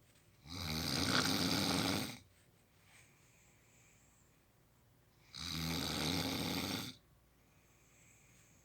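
A man snoring in his sleep: two long snores, each about a second and a half, about five seconds apart, with faint breathing between them.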